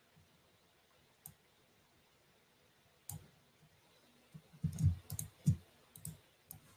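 Faint computer mouse and keyboard clicks: a couple of isolated clicks, then a quick run of them in the last couple of seconds.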